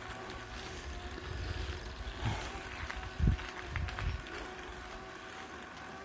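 Bicycle climbing a steep mountain road slowly, about 9-10 km/h, heard as a steady low rumble on the microphone with a few dull thumps, the loudest about three seconds in.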